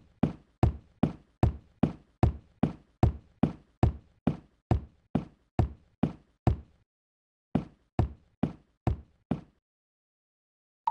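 Cartoon sound-effect footsteps: evenly spaced thuds, about two and a half a second, that break off for a moment, go on for a few more steps, then stop.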